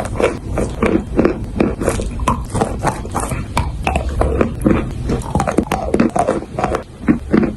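Chalk being bitten and chewed: a steady run of crisp, irregular crunches, several a second.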